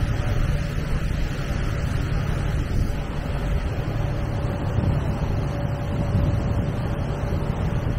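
Cruise ship's engine droning steadily, with water rushing along the moving hull and a faint steady whine above the drone.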